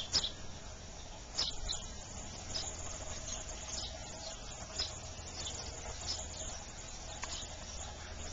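Backyard garden ambience: short high-pitched chirps at irregular intervals, about one a second, over a faint steady hum and a low rumble.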